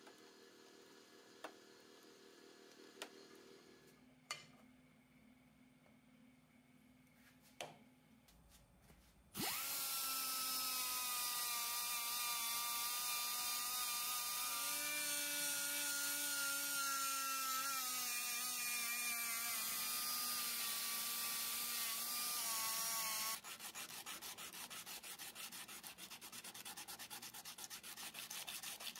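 A few light clicks and taps. About nine seconds in, a small power tool starts and runs with a steady whine whose pitch shifts slightly partway through, then cuts off suddenly. Rapid, even rubbing strokes follow near the end.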